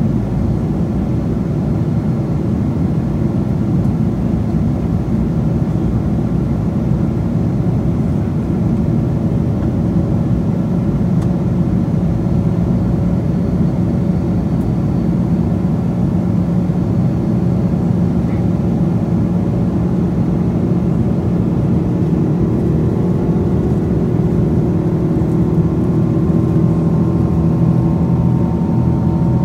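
Boeing 777-200's Pratt & Whitney PW4000 turbofan engines heard inside the cabin during the climb after takeoff: a loud, steady drone. A higher hum joins it in the last few seconds.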